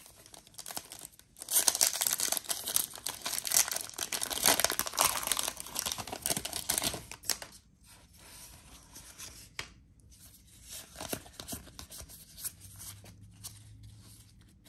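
Pokémon booster pack's foil wrapper torn open, crinkling and crackling loudly for about six seconds. This is followed by quieter rustling as the cards are taken out and handled.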